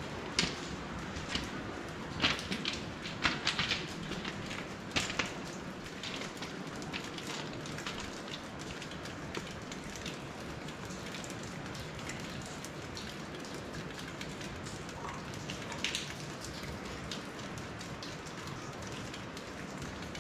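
Steady hiss of running water in a limestone resurgence cave, with scattered sharp taps and drips, several in the first five seconds and one more near sixteen seconds.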